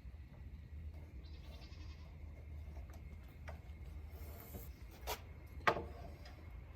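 Light handling noises of carpentry work: a couple of brief scraping hisses, then two sharp knocks about five seconds in, the second the louder, over a low steady hum.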